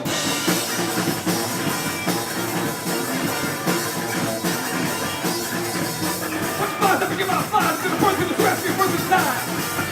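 Live rock-funk band playing: drum kit, electric guitar and bass guitar. About seven seconds in, a pitch-bending melodic line comes in over the band.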